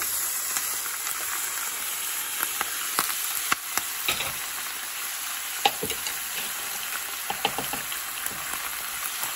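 Partly frozen raw ground beef sizzling steadily in hot oil in a frying pan, with a few sharp ticks scattered through the sizzle.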